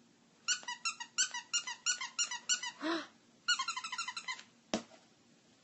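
Squeaky dog toy squeaking in two quick runs of short, high squeaks as a German Shepherd puppy chews on it, with a short pause between the runs. A single sharp knock comes near the end.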